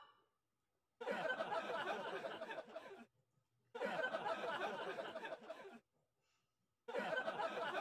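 Group laughter in three bursts of about two seconds each, separated by short silences. Each burst starts and stops abruptly.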